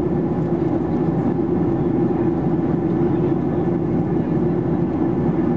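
Steady cabin drone of a Boeing 737-800 in flight: its CFM56-7B turbofans and the airflow over the fuselage make an even, low hum, heard from inside the cabin.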